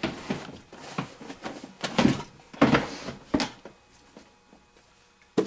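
Hands rummaging through belongings: irregular rustling and knocking of items being moved about, busiest in the first three seconds or so, then quieter, with one sharp knock near the end.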